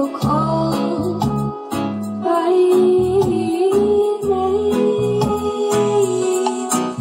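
Music: a song with a held melody, likely sung, over plucked guitar and a repeating bass line.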